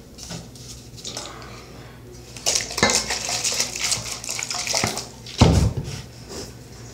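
Slime mixture being stirred with a utensil in a stainless steel mixing bowl, with scrapes and clinks. About two and a half seconds in, a hissing rush runs for about three seconds as white foam is added. A single loud knock comes a little after five seconds.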